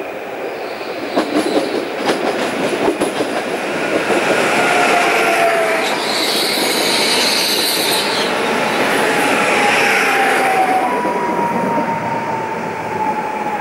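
PESA Elf EN76 electric multiple unit passing. Its wheels click sharply over the rails in the first few seconds, then a high hiss from the passing cars is at its loudest. Thin whining tones slide down in pitch, once early and again near the end as it goes away.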